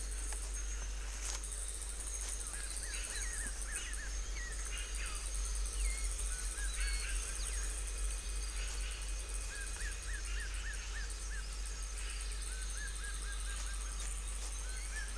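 Forest ambience: faint high chirps in short, quick runs of four to six notes over a steady hiss and a low hum.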